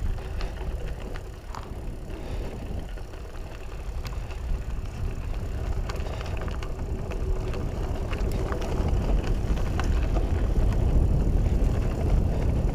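Loaded mountain bike being ridden along a track: a low rumble of tyres and air moving past that grows louder toward the end, with scattered clicks and rattles from the bike.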